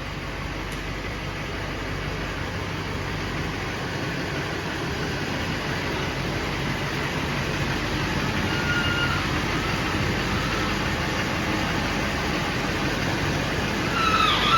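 Duramax 6.6 L V8 turbodiesel of a Chevy Silverado 2500 running as the truck is moved into the garage, slowly growing louder. A few short high squeaks sound near the middle and the end.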